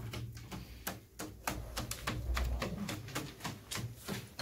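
Pigeons' claws clicking and tapping on wooden boards as the birds walk about: many sharp, irregular clicks, several a second, over a low hum.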